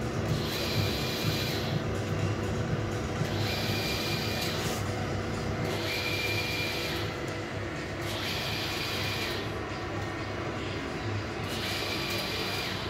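Steady machine running noise with a low hum. Over it, a higher whir swells in and out roughly every two to two and a half seconds.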